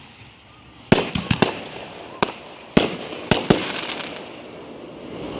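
Fireworks going off: a quick string of about eight sharp bangs over two and a half seconds, the last few trailing into a brief crackle.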